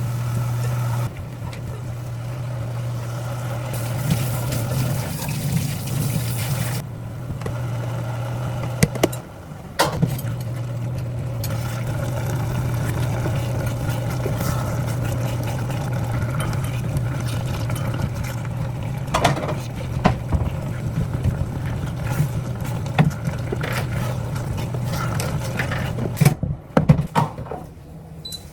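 Steady low mechanical hum, like a kitchen appliance or fan running, with scattered clinks and knocks of kitchen work; the hum cuts out near the end, leaving a few louder knocks.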